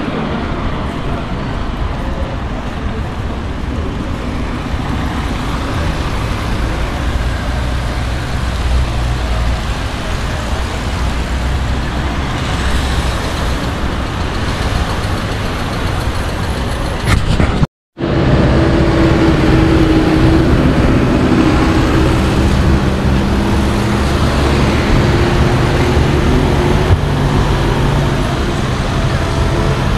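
Road traffic at night: cars and vans driving past, a continuous mix of engine and tyre noise. The sound drops out for a split second a little past halfway. After that a steadier engine drone from vehicles close by stands out.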